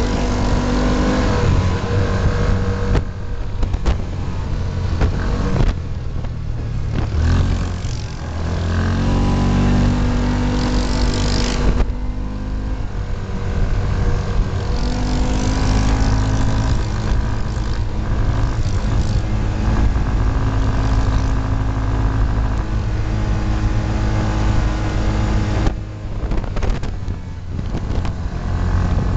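Yamaha Rhino side-by-side's engine running under way on a gravel road, its pitch rising and falling as the throttle changes, over a steady rumble of road noise.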